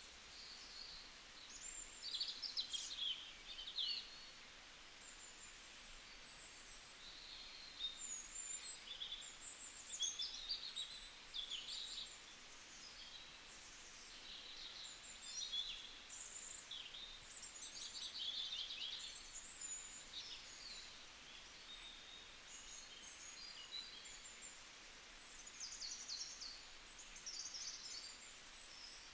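Several small songbirds chirping and warbling, with rapid high-pitched trills and twitters coming and going over a faint steady hiss of forest ambience.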